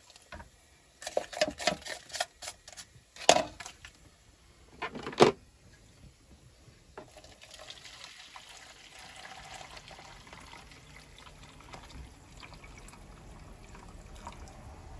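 A few sharp knocks and clinks, then from about seven seconds in a steady pour of boiling water into a measuring jug over a crumbled vegetable stock cube, the jug filling to make stock.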